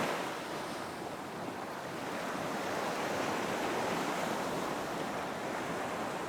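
Ocean surf washing onto a beach: a steady rush of breaking waves that eases about a second in and then builds again.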